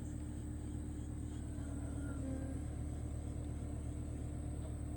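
Steady low background hum with a constant faint tone above it, unchanging throughout.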